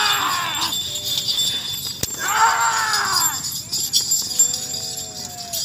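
Men shouting loudly to drive a pair of bulls hauling a stone slab, one shout at the start and another about two seconds in, over a steady jingling of bells.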